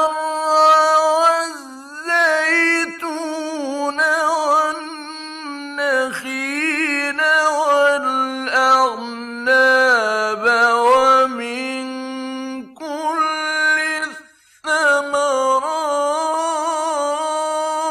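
A man's voice reciting the Quran in a melodic, chanted style, with long held notes that waver and are ornamented. There is a short pause for breath about 14 seconds in, and then the chant carries on.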